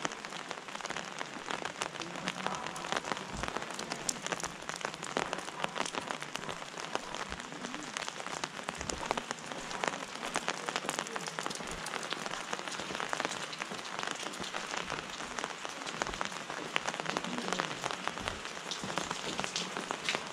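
Steady rain drumming on an umbrella held overhead: an even hiss crowded with sharp, close drop ticks, with a few soft low thumps.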